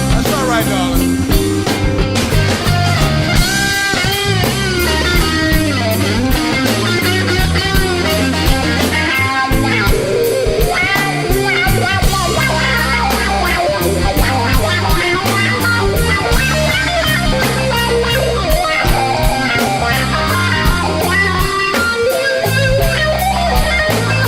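Instrumental break of a blues song: a lead guitar plays bending notes over a bass line and a steady drum beat.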